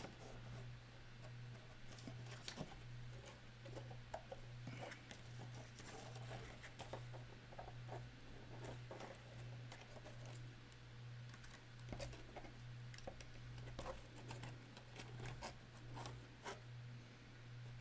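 Faint, scattered clicks and scratching from hands working a wire sculpture armature, over a steady low hum.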